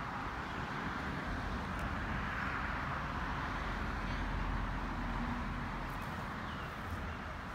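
Steady road noise of a car driving slowly along a paved road: tyre and engine sound with a low rumble, even in level throughout.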